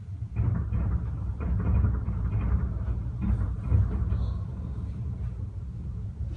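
Fireworks exploding in quick succession, their booms overlapping into a continuous low rumble with a few louder bangs, starting about half a second in.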